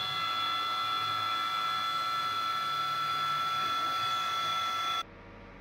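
End mill cutting an aluminium block on a manual milling machine, a steady high-pitched whine of several fixed tones over the cutting noise. About five seconds in it cuts off abruptly, leaving a much quieter steady machine noise.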